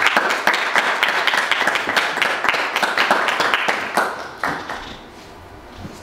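Audience applauding at the end of a talk, a dense patter of hand claps that dies away after about four seconds.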